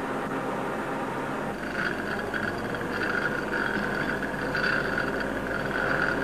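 Locomotive-works machine-shop noise: a steady mechanical din from heavy machinery such as the lathe machining a cast locomotive wheel. After about a second and a half, a high, wavering squeal rises over it.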